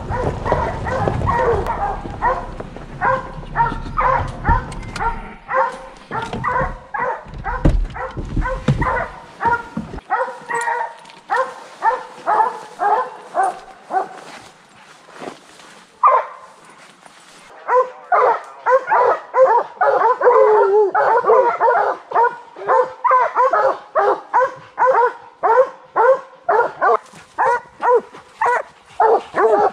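Bear hounds baying steadily at a tree, short barks about two to three a second, the sign that they have a bear treed. From about eighteen seconds in the baying grows louder, with more than one dog barking at once. A low vehicle rumble runs beneath the barking and stops about ten seconds in.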